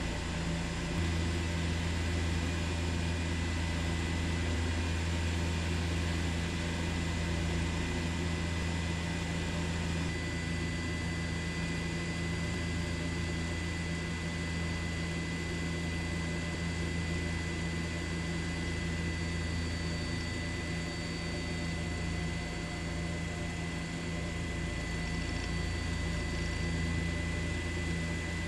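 Steady drone of a helicopter heard from the cabin: an even low hum with a thin, constant high whine over it.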